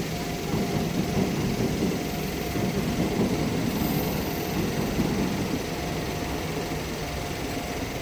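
Tokyo Metro Hibiya line train running past on its elevated track: a steady rumble of wheels on rails that eases slightly toward the end. A faint ringing tone comes and goes over it, from the level crossing's warning signal.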